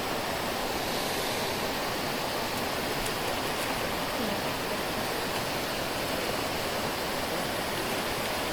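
Stream water rushing, a steady even hiss of flowing water.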